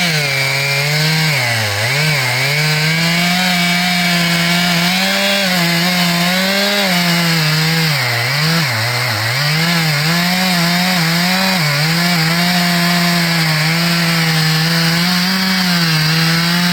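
Stihl MS441 Magnum two-stroke chainsaw with a 36-inch bar and new chain running at full throttle while cutting wood. Its engine speed dips and recovers again and again as the chain bites under load, most deeply about two seconds in and again around eight to nine seconds.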